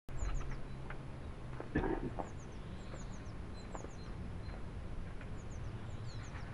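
Small birds chirping in short, high, falling notes, repeated again and again, over a steady low hum. There is a single knock about two seconds in.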